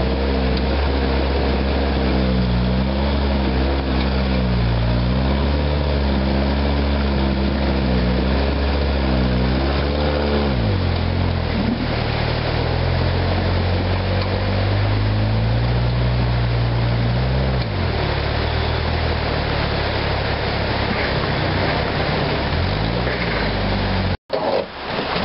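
Rock buggy's engine revving up and down over and over as it crawls over a log, its pitch rising and falling, dropping back twice in the second half. Rushing stream water runs underneath throughout.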